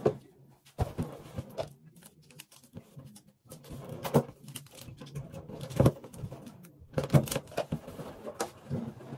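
Latex balloon being handled and rubbed as tape is stuck to it, with irregular rustles and knocks, the loudest about six and seven seconds in.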